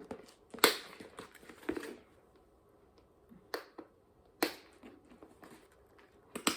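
Snap fasteners on the side of a small handbag being pressed shut and pulled open: several sharp clicks, a second or more apart, with light handling rustle between them.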